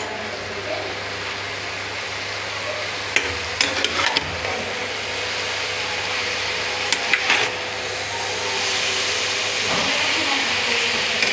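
Food sizzling in a pan, with a utensil clicking and knocking against the pan in two short clusters, about three seconds in and again about seven seconds in. The sizzle grows louder near the end.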